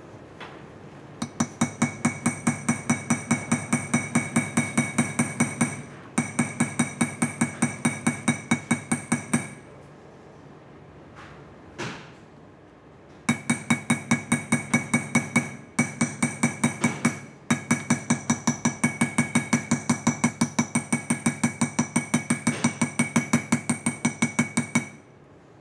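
Small hammer tapping quickly on a steel perloir (beading tool), about five light metallic taps a second in several runs with short pauses. The taps round the protruding end of a nail into a bead, riveting a metal plate onto leather.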